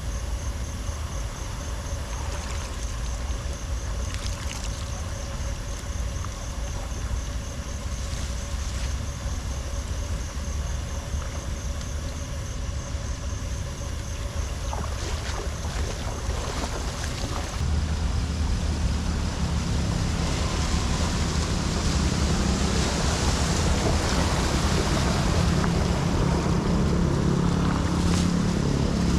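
Floodwater rushing into a storm drain, a steady rushing noise that grows louder about two-thirds of the way through.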